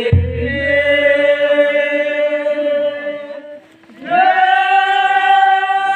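A group of voices singing two long held notes with a pause between them, with a deep thump right at the start.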